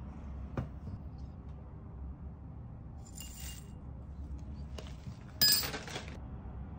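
Dried herbs and orange peel pieces tipped from a measuring spoon into a glass jar: a light click, a short rattle of pieces landing about three seconds in, and a louder, brighter clatter against the glass about two-thirds of the way through.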